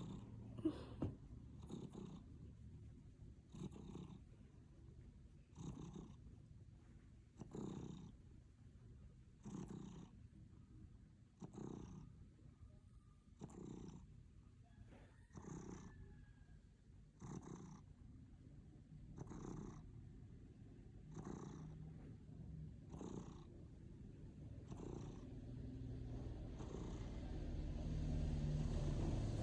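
Domestic cat purring, swelling with each breath about every two seconds. A low rumble builds near the end.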